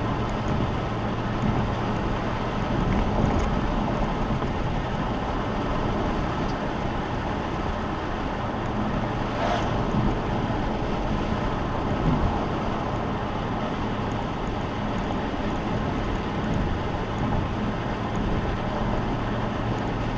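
Car driving at a steady pace: continuous road and tyre noise with a low steady engine drone. A brief whoosh about nine and a half seconds in.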